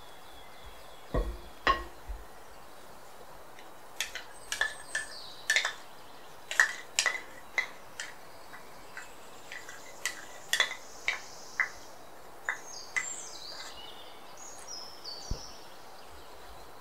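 Wooden spoon knocking and clinking against a glass mixing bowl in a string of sharp taps, with a couple of duller thumps about a second in.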